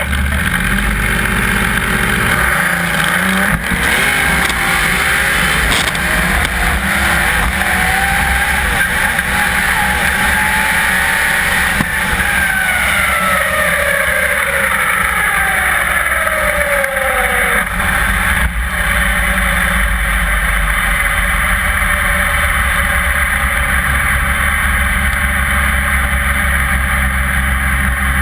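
Turbocharged Nissan RB30 straight-six drag engine launching and pulling through a full quarter-mile pass, its pitch climbing for about eight seconds with the throttle going on and off on a cold, slippery track. About twelve seconds in it comes off the power and the pitch falls away, and the rest is a steady low rushing of air during the parachute rollout.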